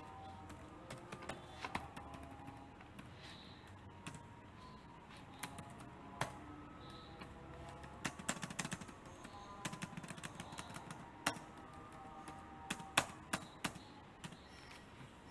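Faint, irregular clicks and taps, a few at first and coming thicker from about eight seconds in, over low background noise with faint steady tones.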